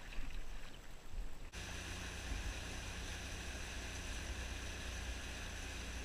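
Water splashing and lapping briefly, then, about a second and a half in, an abrupt change to a boat's outboard motor running steadily under way, with water rushing past the hull.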